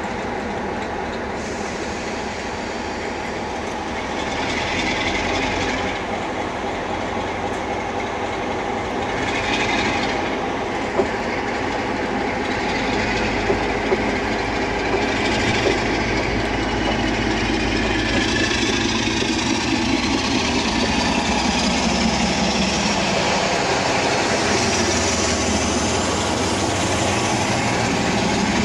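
British Rail Class 47 diesel-electric locomotive's Sulzer 12LDA28 twin-bank engine working under power as it pulls a train away, growing gradually louder as it comes nearer and passes. A rising whine comes in over the second half, and there are a few sharp clicks a little before the middle.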